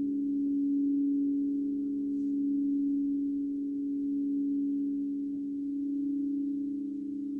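Crystal Tones alchemy crystal singing bowls sounding together: several steady pure tones held at once, the loudness swelling and easing slowly.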